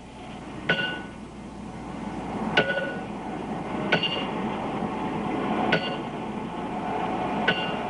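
Hammer blows on steel in a locomotive shop: five sharp, ringing metal clanks spaced about one and a half to two seconds apart, over steady background shop noise.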